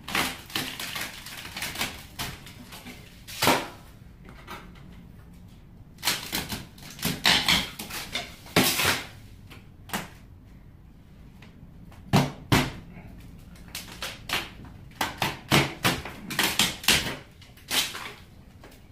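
Rotten, termite-eaten wooden ceiling boards being pulled down by hand: irregular bursts of wood cracking, knocking and rattling, in clusters with short pauses between.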